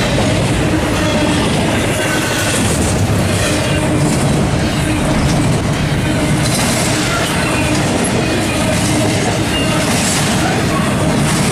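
Double-stack intermodal freight cars rolling past close by: a steady, loud rumble and clatter of steel wheels on the rail joints, with brief faint high-pitched wheel squeals now and then.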